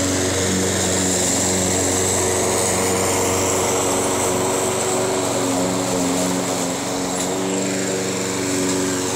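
Craftsman walk-behind rotary lawn mower's small single-cylinder engine running steadily as it is pushed through tall grass, its note shifting slightly with the load.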